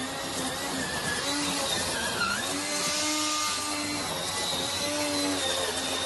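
Homemade remote-control weed trimmer running as it drives through grass: a steady motor whine that dips and rises in pitch, with a louder hiss about three seconds in.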